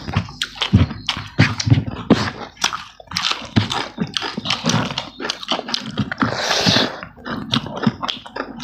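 Close-miked eating sounds: chewing, wet lip smacks and the squelch of rice and chicken being mixed and eaten by hand, in a quick irregular run of small clicks and soft thumps. One longer hissing noise comes about six and a half seconds in.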